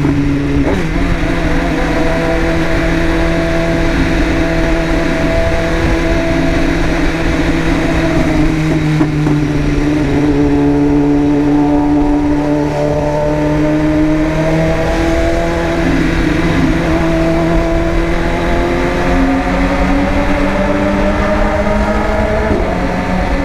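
BMW S1000RR's inline-four engine running under way at a steady, fairly high rpm. Its pitch drifts only slightly and rises a little near the end.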